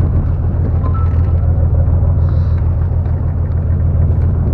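Fishing boat's engine running with a steady, even low drone.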